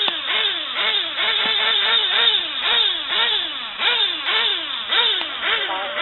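Several 1/10-scale 2wd short-course RC trucks racing, their motors whining up and down in pitch over and over as they accelerate and brake through the turns, the sweeps overlapping from more than one truck.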